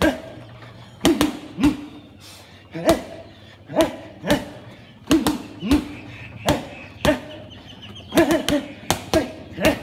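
Boxing gloves punching a padded bag: sharp slapping thuds, about sixteen in all, thrown singly and in quick combinations of two to four.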